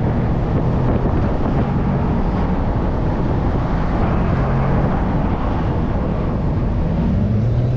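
Wind rushing through the open cabin of a Nissan 370Z roadster with the top down and buffeting the microphone, over the low drone of its 3.7-litre V6 under way. The engine note rises near the end as the car picks up revs.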